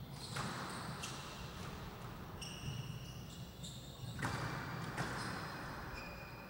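Squash rally: the ball smacking off rackets and walls several times, with sneakers squeaking in short, high chirps on the court floor as the players turn and lunge.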